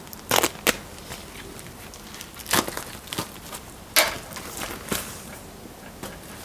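Handling and opening a mailed parcel: a handful of sharp, irregular crackles and rustles of packaging.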